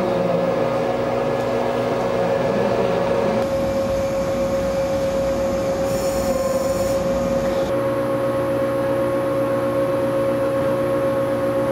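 Motor-generators of early JR 115 series 0-bandai electric multiple-unit cars running while the train stands, giving a steady high hum over a lower drone. The recording cuts to a different car's generator, with a slightly different hum, about three and a half seconds in and again about eight seconds in. A brief high whine comes about six seconds in.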